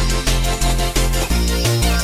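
Background music with a steady beat and a bass line that changes note every fraction of a second.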